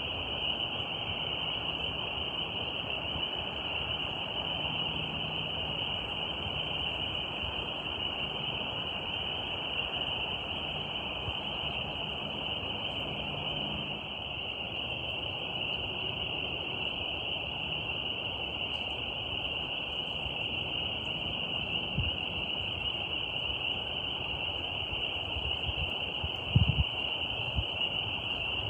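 Nature ambience: a steady high-pitched drone over an even hiss, with a few low thumps near the end.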